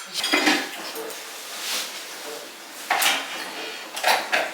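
Dishes and cutlery clattering, with a few separate sharp knocks, one about three seconds in and two near the end.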